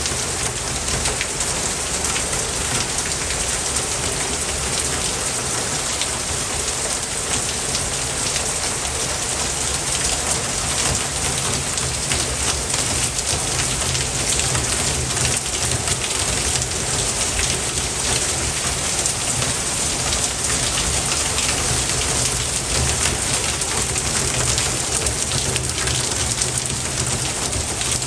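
Steady rain falling, a dense even patter of drops that holds at the same level throughout.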